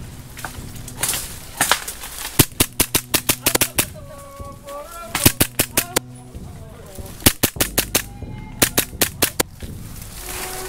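Tokyo Marui Glock 17 gas-blowback airsoft pistol fired in four quick strings of shots, about ten shots in the first string and a handful in each of the next three.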